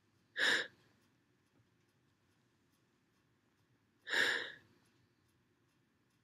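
Two short, sharp gasping breaths about four seconds apart: the build-up of a sneeze that is stuck and will not come out, set off by sniffing perfume.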